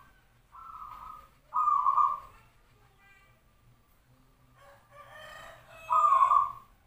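Perkutut (zebra dove) cooing: two phrases, each a softer coo followed about a second later by a louder one.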